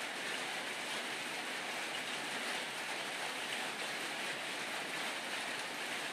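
Steady rain falling, an even wash of drops with no breaks.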